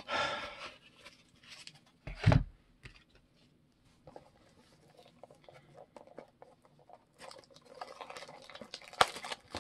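Paper and foil card packaging being handled: a short rustle at the start, a dull thump about two seconds in, then denser crinkling and rustling with sharp clicks near the end.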